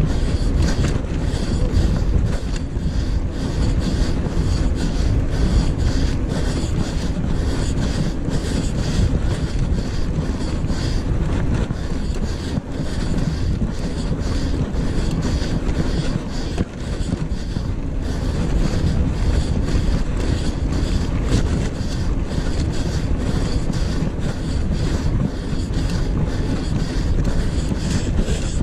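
Mountain bike riding fast over a dirt track: tyre rumble and rattling clicks from the bike under steady wind buffeting on the microphone.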